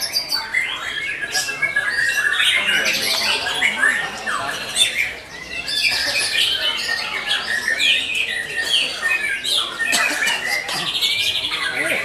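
A chorus of many caged songbirds singing at once at a bird-song contest: overlapping chirps, whistles, squawks and fast rattling trills, with no pause.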